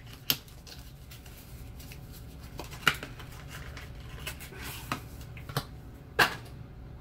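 Scattered clicks and taps of a cardboard eyeshadow palette being handled and opened, about five in all, the loudest near the end.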